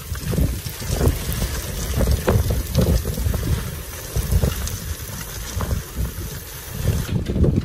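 Gusty wind buffeting the microphone, a low rumble that swells and eases in waves every second or so.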